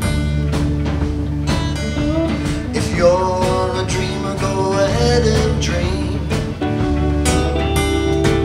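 Live band playing an instrumental passage: acoustic and electric guitars over a steady drum beat, with a lead line bending in pitch from about three to five seconds in.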